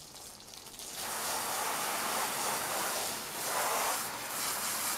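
A stream of water splashing onto a soapy rug: a steady, hissing rush that starts about a second in.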